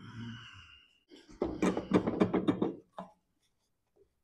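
A quick run of metallic rattling knocks, about ten in under two seconds, from a lawn tractor mower deck's spindle pulley being gripped and worked by hand, followed by a few light clicks.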